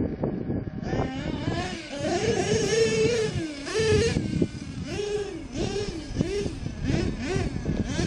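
Nitro RC car's small two-stroke glow-fuel engine revving up and down over and over as it is driven, its pitch rising and falling with each opening and closing of the throttle.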